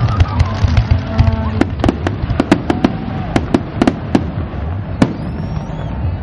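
Fireworks display: a rapid string of sharp bangs and crackles from exploding shells, densest in the middle, with one last single bang about five seconds in.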